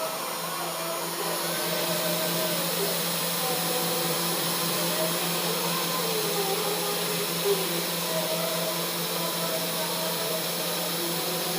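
Mini 3-axis CNC router running: a steady spindle whine and hiss over a low hum, with tones that shift in pitch every second or so as the machine moves, and one brief tap about two thirds of the way through.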